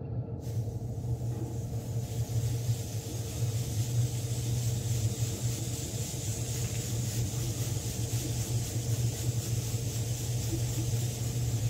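Airbrush spraying paint, a steady high air hiss starting about half a second in, over the steady low hum of a motor running throughout.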